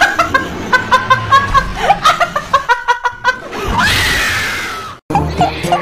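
A woman laughing hysterically in rapid bursts, then letting out a long scream about four seconds in that slowly drops in pitch and cuts off abruptly. Music plays underneath.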